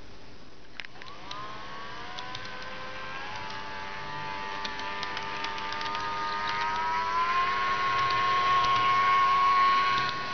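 Small electric motor of a model Melbourne W6 class tram whining as it starts off and gathers speed, its pitch slowly rising, then holding steady and growing louder, with scattered light clicks from the running gear on the track.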